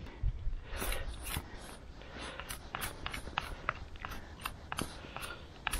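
Bear Grylls knife whittling a green stick: an irregular run of short, crisp cuts and scrapes of the blade against the wood.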